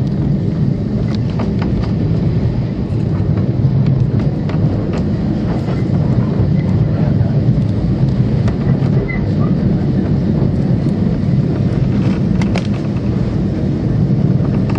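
Great Orme Tramway's cable-hauled tram running along its track: a steady low rumble with scattered sharp clicks, a few of them close together about twelve seconds in.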